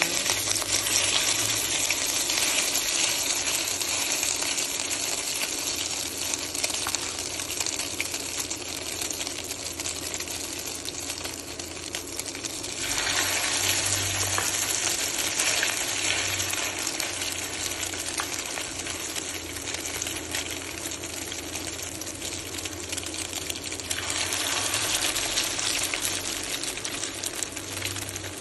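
Hot oil sizzling and crackling steadily in a frying pan, as salmon patties fry. The sizzle gets louder about halfway through and again near the end.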